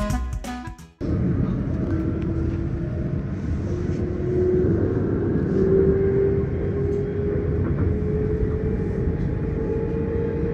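Guitar music cuts off about a second in, giving way to a train's running noise heard from inside the carriage: a steady rumble with a faint whine that rises slowly in pitch.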